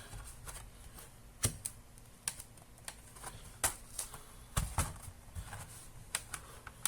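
Irregular sharp plastic clicks and taps from handling the laptop's keyboard deck and its ribbon-cable connectors.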